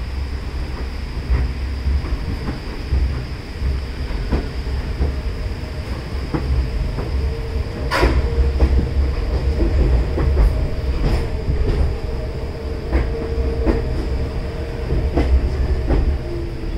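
R46 subway train rolling into the station along the platform: a steady low rumble with repeated sharp clacks of the wheels over rail joints, and a held whine from the cars as the train slows through the second half.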